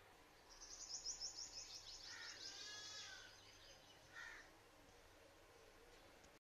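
Faint bird calls: a quick, high twittering trill through the first half, and two short lower calls about two seconds apart.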